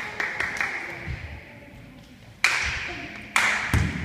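Sharp slaps and thuds of a volleyball being struck and bouncing on a wooden gym floor, ringing on in the big hall. The two loudest slaps come in the second half, less than a second apart.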